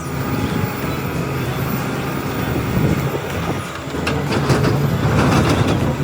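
A truck engine running steadily, with a run of clicks and clatter from about four seconds in.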